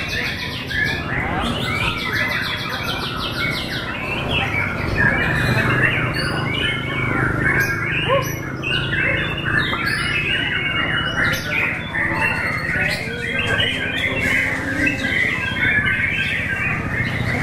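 White-rumped shamas (murai batu) singing in a songbird contest, a dense, unbroken mix of whistles, chirps and fast trills from several birds at once.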